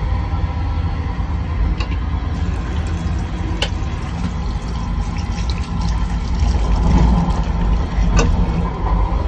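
Sensor tap running water into a small stainless steel sink in a train toilet, starting a few seconds in, over the steady low rumble of the moving passenger coach. A few sharp clicks come through.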